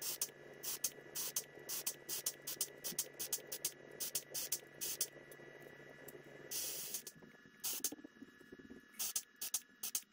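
A hand tool working thin aluminium aircraft parts: short, sharp scraping strokes, two or three a second, with one longer stroke about two thirds of the way through. A faint steady hum runs underneath and stops shortly after the longer stroke.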